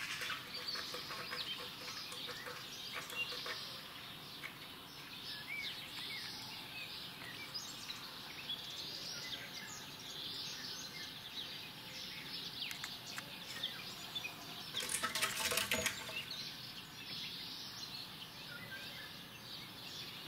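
Small birds chirping and calling over a steady outdoor background hiss, with a short, louder scratchy rustle about fifteen seconds in.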